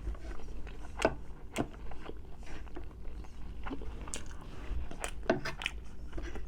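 A person chewing and biting food, with irregular sharp, wet mouth clicks and smacks over a faint steady low hum.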